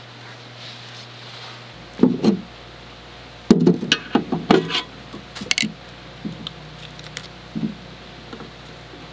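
A series of sharp knocks and clatters, loudest about two seconds in and again between three and a half and six seconds, over a steady low hum.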